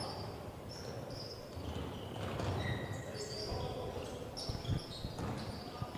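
Basketball game sounds in a gym: repeated short sneaker squeaks on the court, a few ball bounces about two thirds of the way through, over a steady background of crowd noise.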